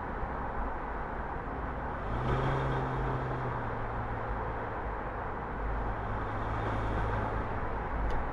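Car driving on the road: steady low tyre and road rumble, with an engine hum that comes in about two seconds in and settles a little lower in pitch soon after. A short tick near the end.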